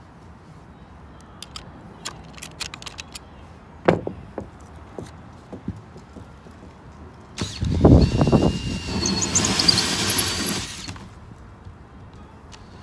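Drywall being worked with hand tools: scattered light clicks and a knock, then, about halfway through, some three seconds of loud scraping, crunching noise with a high squeal.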